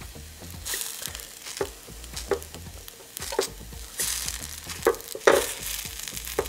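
Mini pancakes sizzling in a small nonstick frying pan, with a chopstick tapping and scraping against the pan about every second as they are turned.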